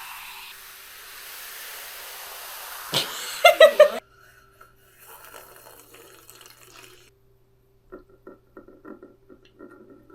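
Soda poured into a cup of ice, a steady fizzing pour, then ice clinking sharply in the cup a few times about three seconds in. The sound cuts off suddenly just after four seconds, and only faint scattered clicks follow.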